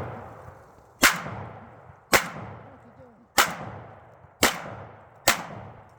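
Five gunshots fired about one a second, each followed by a long echo that dies away before the next.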